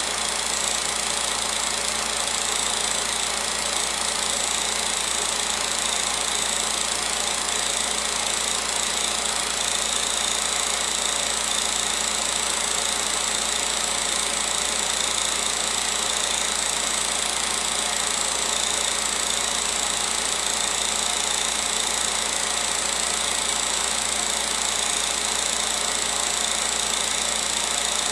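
16mm film projector running: a steady mechanical whir and hiss with a constant high whine, unchanging throughout.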